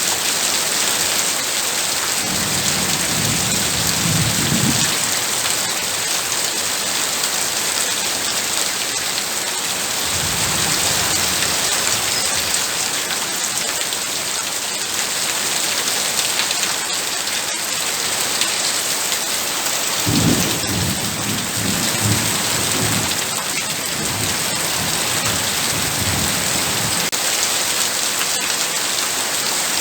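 Heavy rain falling steadily, with low thunder rumbling three times: briefly about two seconds in, again around ten seconds, and longest from about twenty seconds in.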